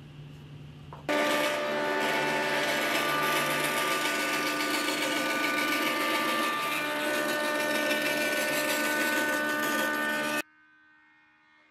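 Metabo band saw running and cutting through a wooden scabbard blank: a steady whine of several tones over a hiss. It starts suddenly about a second in and cuts off near the end.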